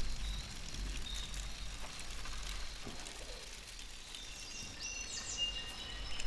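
Outdoor nature ambience: a steady low hiss with faint bird chirps and whistles, which come through more clearly near the end.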